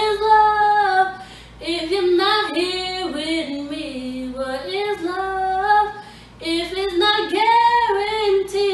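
A young woman singing unaccompanied, holding and bending long melodic notes. There are two brief breaks, about a second and a half in and again about six seconds in.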